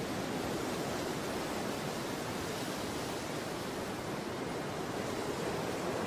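Steady, even rush of falling water: a dense hiss with no separate drops or splashes standing out.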